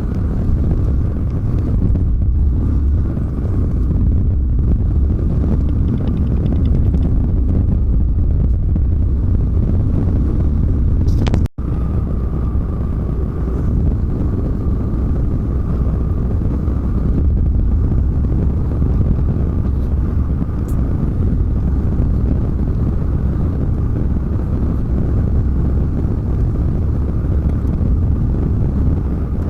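Steady low rumble of a Volvo semi-truck's diesel engine and road noise inside the cab while driving, with a brief moment of silence about a third of the way through.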